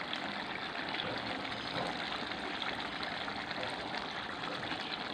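Catfish curry gravy simmering in a karahi on a gas burner: a steady bubbling hiss with fine crackles.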